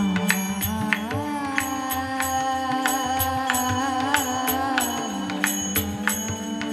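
Devotional kirtan music. A voice holds one long, wavering sung note that stops about five seconds in, over a steady harmonium-like drone. Small hand cymbals click at a steady beat, with soft drum strokes underneath.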